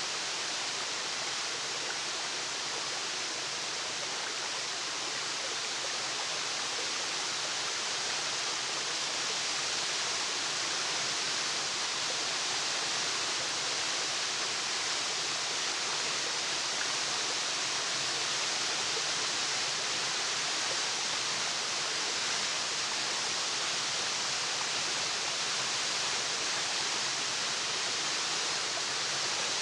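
Waterfall: a steady, even rush of falling water, with no birds or other events standing out.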